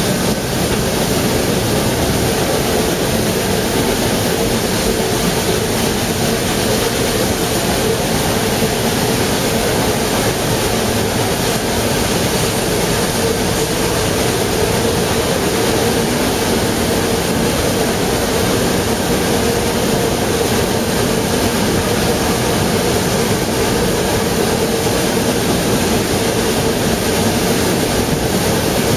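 Narrow-gauge steam train hauled by the 1914-built locomotive 99 6101, under way. A steady, loud rush of running noise and steam, heard close up from an open carriage window.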